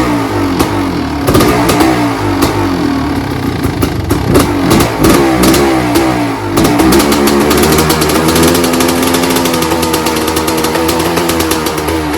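1998 Kawasaki KX500's 500 cc single-cylinder two-stroke engine running, its revs going up and down for the first half, then holding a steadier speed from about six and a half seconds in.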